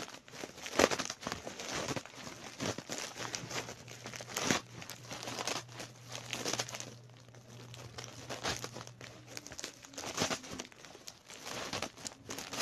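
Plastic bubble wrap being crinkled and pulled off a package by hand: irregular crackling with sharp snaps, the loudest about a second in and again near the middle, thinning out for a stretch after that.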